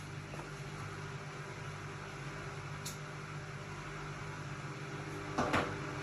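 Hotpoint-Ariston RSG 825 J washing machine running with a steady motor hum. There is a short sharp click about three seconds in and two quick knocks near the end.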